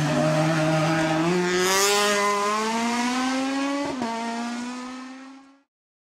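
Car engine accelerating, its pitch climbing steadily with a shift about a second in and another about four seconds in, a short burst of hiss near two seconds, then fading out shortly before the end.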